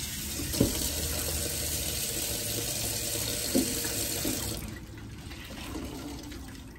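Kitchen faucet running into a stainless steel sink while raw tilapia fillets are rinsed in a glass dish, with a few soft knocks. The water stops about four and a half seconds in.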